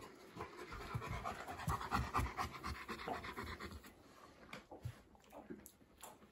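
East European Shepherd dog panting rapidly, strongest in the first few seconds and fainter after about three and a half seconds.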